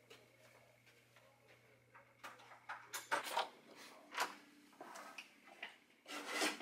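A hotel room door being unlocked and opened by hand: a string of clicks and rattles from the lock and handle, loudest a little past the middle, then a longer scraping rub as the door swings near the end.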